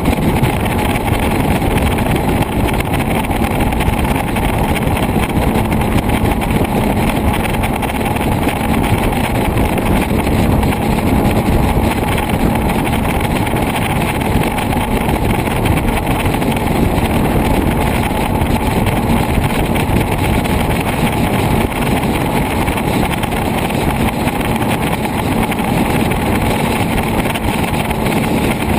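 Motorcycle cruising at steady motorway speed: a constant rush of wind noise over an even engine drone, with no change in pace.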